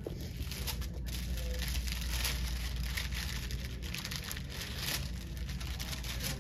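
Paper wrapper of a sterile glove packet being opened and unfolded by hand: crinkling, rustling paper with many quick crackles throughout.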